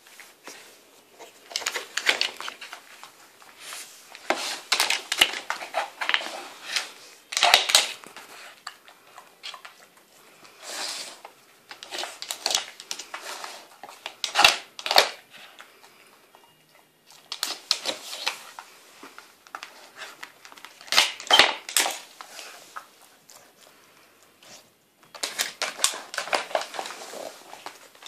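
A Cardigan Welsh Corgi nosing and pawing at a wooden Nina Ottosson puzzle board, shoving its sliding blocks along their tracks to get at hidden treats. It makes irregular bursts of clattering clicks and scraping, with short pauses between them.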